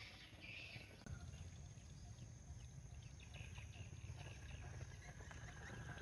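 Faint outdoor ambience: a few bird chirps near the start over a low rumble that slowly grows louder toward the end.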